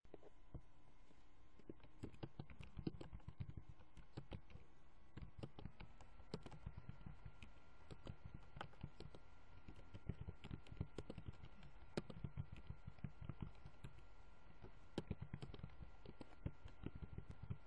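Computer keyboard typing: irregular runs of faint keystroke clicks. Behind them runs a faint steady high whine that steps up in pitch about five seconds in.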